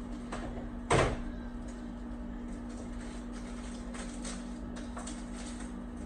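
Metal pry tool scraping old adhesive around the aluminium frame of an iPad mini 2, in short scratchy strokes, with one sharp knock about a second in. A steady electrical hum runs underneath.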